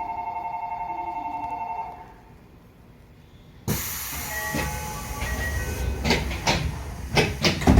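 A pulsing two-note electronic chime that stops about two seconds in. After a short lull a sudden loud burst of air hiss starts about halfway through, followed near the end by a run of knocks and thumps: the pneumatic doors of a Tokyo Metro 8000 series train closing before departure.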